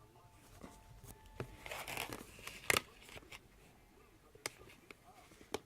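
Rustling and crinkling for about a second and a half, then a few sharp clicks, the loudest a little under three seconds in, with two more near the end.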